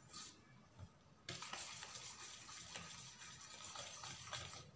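Faint scraping and stirring of a dry flour-and-cocoa mixture in a steel mixing bowl, with a few small clicks of the utensil against the bowl.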